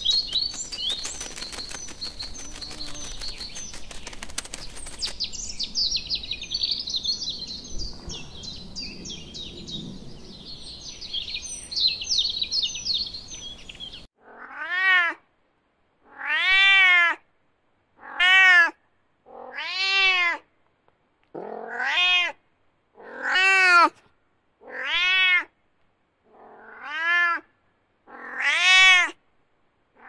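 For about the first fourteen seconds, small birds chirp in high, short notes over a faint outdoor background. Then a domestic cat meows about nine times, one drawn-out meow every second and a half or so, each rising then falling in pitch, with silence between.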